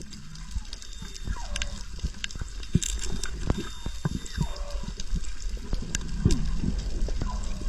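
Underwater sound: many scattered sharp clicks and knocks over a low rumble, with short low gurgles.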